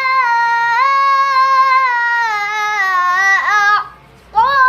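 A child's high voice reciting the Quran in a melodic chanting style (tilawah), holding long drawn-out notes that step slowly up and down. A rapid wavering ornament comes about three and a half seconds in, then a short breath pause before the voice comes back in.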